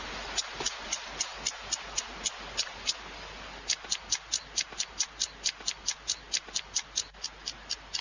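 Flint being struck repeatedly to throw sparks for lighting tinder: sharp, even clicks at about four strikes a second, with a pause of about a second near the middle.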